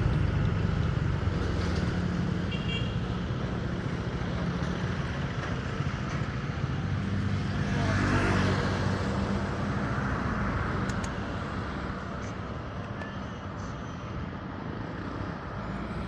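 Motorcycle engine running at low revs and slowly getting quieter, over road traffic noise. A vehicle passes about halfway through.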